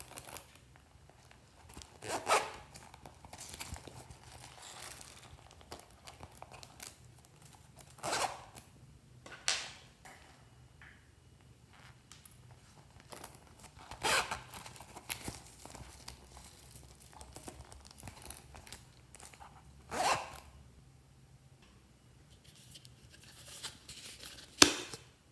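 Zipper on a vinyl cosmetic pouch being pulled in several short, separate strokes. It ends with a sharp plastic click as a plastic capsule is pulled open.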